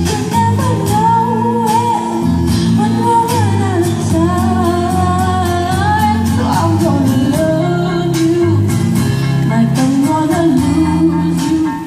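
A girl singing a slow pop song into a handheld microphone over instrumental accompaniment.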